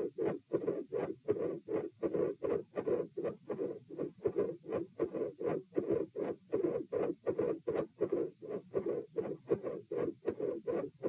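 Heart sounds recorded over the chest of a person lying supine: a regular, even train of short thumps, the repeating beats of a steady heartbeat.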